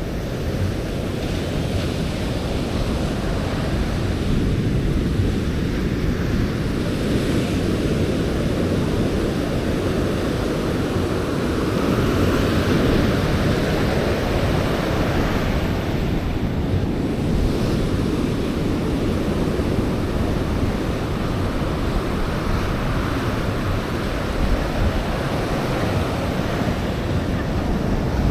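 Ocean surf breaking and washing on a sandy beach: a steady rushing that rises and falls in swells, with wind buffeting the microphone.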